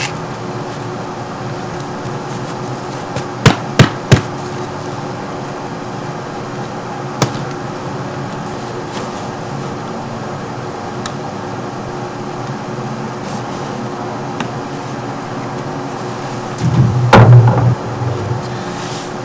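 Sharp knocks of a folding camping chair's frame against a wooden deck, three in quick succession and another a few seconds later, then a louder clatter near the end. A steady hum runs underneath.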